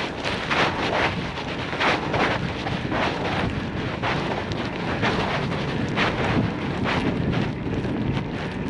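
Wind noise on a bicycle-mounted GoPro's microphone while riding over a snow-covered street: a steady low rumble with short, irregular hissing surges.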